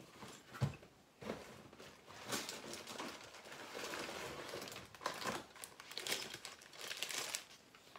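Faint, irregular rustling and crinkling of packaging being handled, with a few soft knocks.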